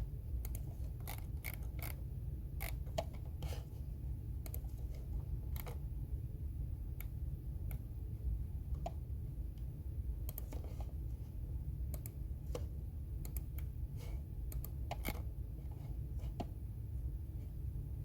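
Computer keyboard keys clicking in sparse, irregular strokes, sometimes a few in quick succession, over a steady low hum.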